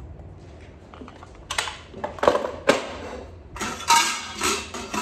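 Metal pressure cooker and its parts being handled: a few knocks and clicks, then from about three and a half seconds in a quick run of metallic clanks and rattles, some of them ringing.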